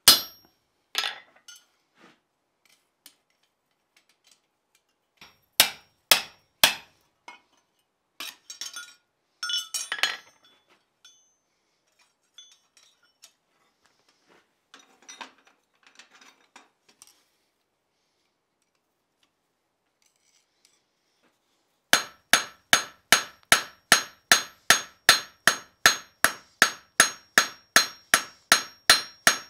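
Blacksmith's hand hammer striking hot steel on an anvil. First come a few scattered blows and tool clinks, then a pause of a few seconds, then steady ringing hammering at about three blows a second.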